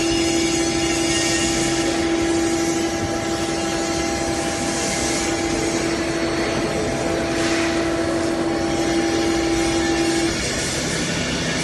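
400-ton vertical-clamp injection moulding machine running with its mould clamped shut: a steady whine over a constant machinery hum, the whine cutting off abruptly near the end.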